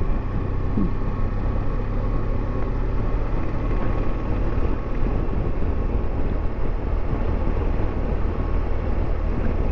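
BMW F700GS motorcycle's parallel-twin engine running at a steady cruise, with wind and road noise from riding.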